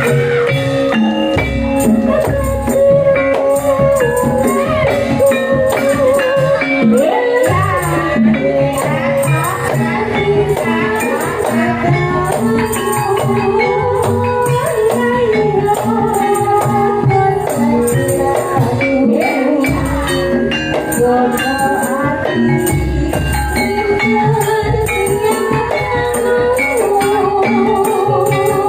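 Live gajah-gajahan band music playing loudly: a melody with singing over a steady drum beat and constant jingling, tambourine-like percussion.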